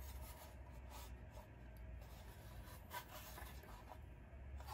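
Faint rubbing and light tapping of hands fitting a plug-in Edge Revolver performance chip into a 7.3 Powerstroke's engine computer connector, with a slightly sharper tap about three seconds in, over a low steady hum.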